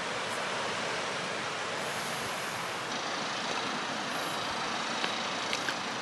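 Steady rushing of water from a waterfall, an even roar with a few faint clicks near the end.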